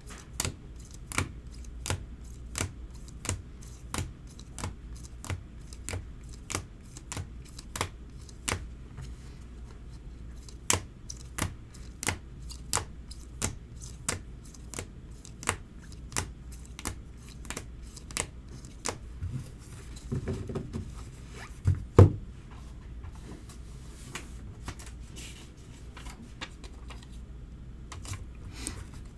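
Stiff chrome baseball cards being flipped through one at a time, each card clicking against the stack about twice a second. A few dull knocks about twenty seconds in, the loudest about two seconds later.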